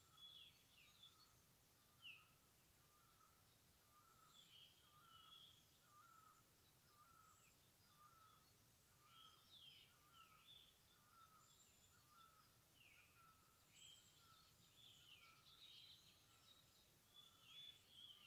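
Faint birdsong in a forest: scattered short chirps and quick falling whistles, over a lower note repeated steadily about one and a half times a second.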